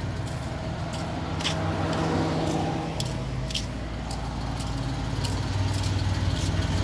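Suzuki F6A three-cylinder engine idling steadily, running again on a newly fitted fuel pump, with a few sharp light clicks scattered over the idle.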